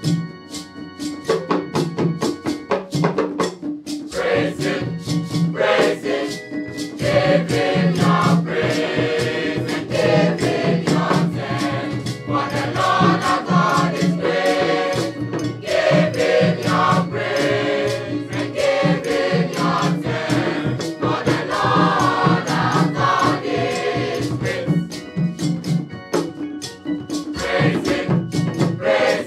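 Mixed school choir of girls and boys singing a gospel song in parts, with a steady percussive beat running under the voices. The singing swells up a second or two in and stays full.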